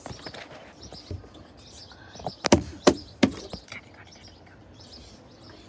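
Birds chirping faintly in the background, with a quick run of four or five sharp knocks a little over two seconds in.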